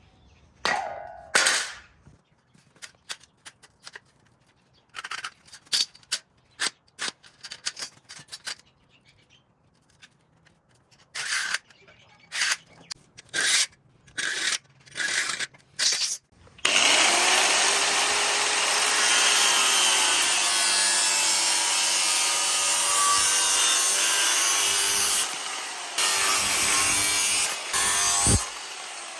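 A string of short, separate scraping or rasping strokes, then about halfway through a power tool starts running loudly and without a break, its whine wavering in pitch. The tool cuts out briefly near the end.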